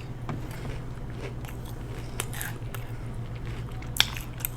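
Close-miked chewing of crunchy shrimp tempura: small crackly crunches and mouth clicks, with one sharper crunch about four seconds in.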